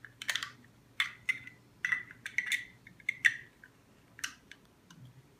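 Plastic Lego pieces clicking and clattering as they are handled: a string of sharp, irregular clicks.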